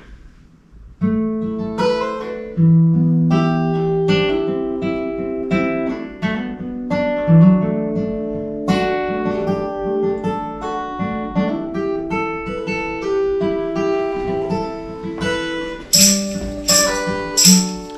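Acoustic guitar playing a picked tune, starting about a second in, with a few sharp clicks near the end.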